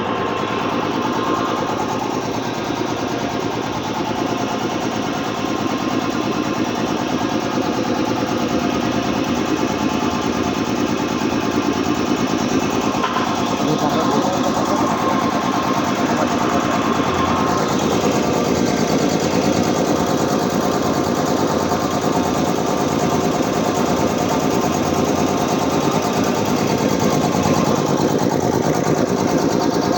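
Brand-new Puma 5 hp high-pressure piston air compressor running steadily on a test run, a fast even mechanical chugging that holds at one level.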